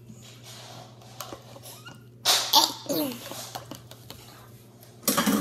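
A person's sudden short vocal outburst a little over two seconds in. Another loud, noisy burst comes near the end.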